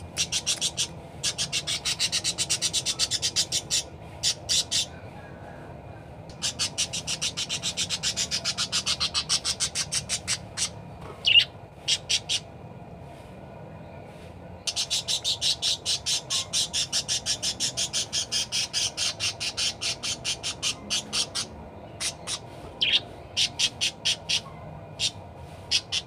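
A green budgerigar (parakeet) chattering in long runs of rapid, evenly repeated high calls, about six a second, broken by short pauses and a few single sharp calls, one of them louder about eleven seconds in.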